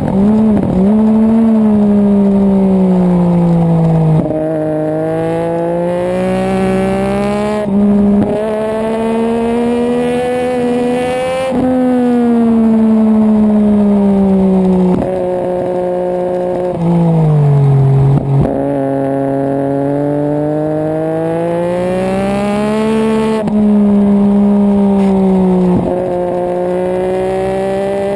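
Sport motorcycle engine at racing speed, heard from on board the bike: its pitch climbs and falls again and again with throttle and gear changes, with brief breaks at the shifts.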